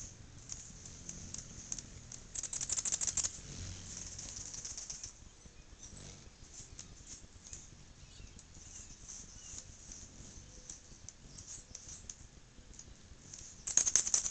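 Anna's hummingbirds at feeders: a scatter of high, sharp chip notes and ticks, broken by two louder bursts of rapid, buzzy chatter, one about two seconds in and one near the end.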